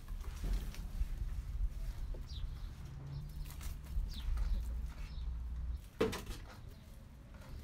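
Small birds chirp a few times while a split plastic plant pot is handled with rustling and scraping. One sharp knock comes about six seconds in.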